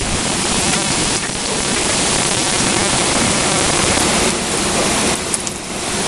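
Heavy thunderstorm rain pouring down in a dense, steady hiss that eases slightly near the end.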